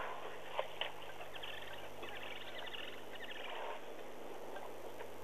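Faint clicks and taps from the wildlife camera being handled close to its microphone, over a steady low electrical hum. A fast, high rattling runs for about two seconds in the middle.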